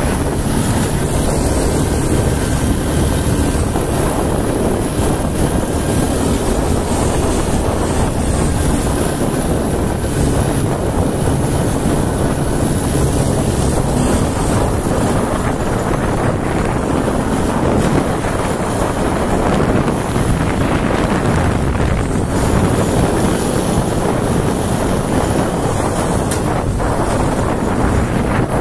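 A 400 cc 4x4 ATV's engine running steadily at full speed, about 70 km/h, as a constant low drone mixed with wind noise.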